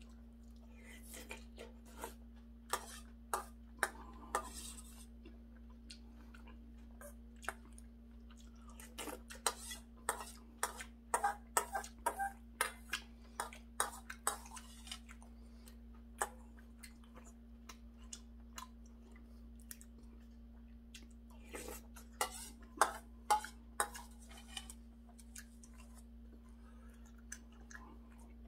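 A man eating seonji-gukbap from a stainless steel bowl with a metal spoon: close-up chewing and spoon clicks on the bowl, in three bouts with quieter pauses between, over a steady low hum.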